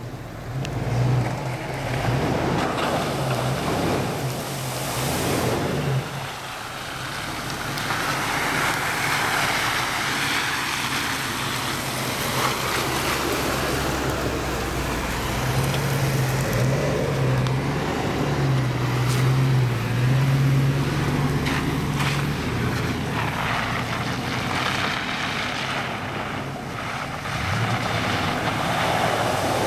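Hummer 4x4 engine running at low speed, a steady low hum that swells and fades, under a broad rushing noise of wind and tyres.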